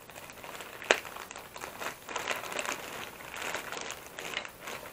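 Shopping packaging crinkling and rustling as it is handled and opened, with one sharp snap about a second in.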